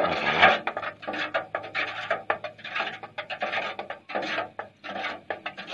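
A wooden stick stirring NPK fertilizer into water inside a galvanized metal watering can to dissolve it: repeated scraping, sloshing strokes about twice a second, with the stick knocking against the can's metal.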